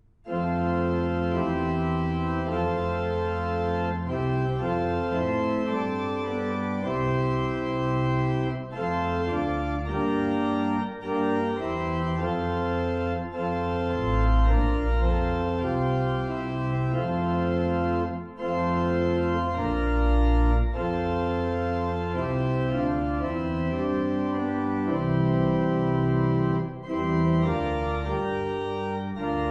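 Organ playing a slow piece in sustained chords over deep bass notes, starting right after a brief silence.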